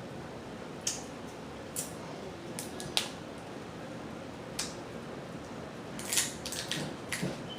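Scattered sharp cracks and clicks of crab shells being broken and picked apart by hand, a few single snaps early on and a quick run of them near the end, over a steady low hiss.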